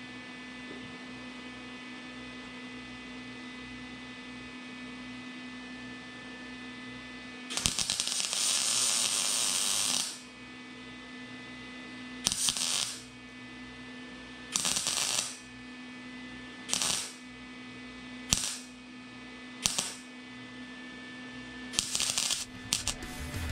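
Wire-feed welder arcing on a car's side panel in separate bursts: one of about two and a half seconds, then five shorter ones a second or two apart, and a quick run of short tacks near the end. These are short tack welds over the earlier plug welds. A steady electrical hum runs under and between the bursts.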